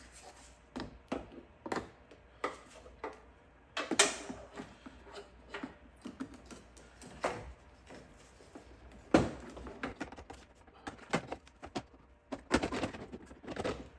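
Irregular clicks and knocks of a plastic tailgate light assembly and its gasket being handled and pushed into place, the loudest knocks about four and nine seconds in.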